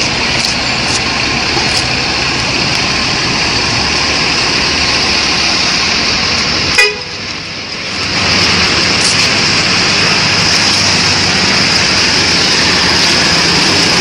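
A tour coach's engine running as it manoeuvres and pulls past close by. The sound breaks off with a click about seven seconds in, then comes back louder.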